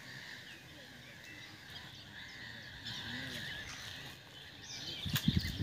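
Outdoor chorus of birds chirping and frogs croaking around a lake. About five seconds in, a few loud, low thuds cut in.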